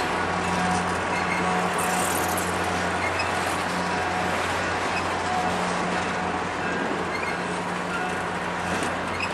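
Passenger train cars rolling past at close range: a steady rumble of steel wheels on the rails, with a constant low hum underneath.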